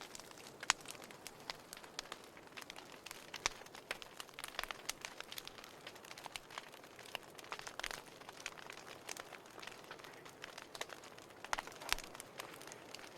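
Wood fire in a fireplace crackling: irregular sharp pops and snaps over a soft steady hiss, with a few louder pops scattered through.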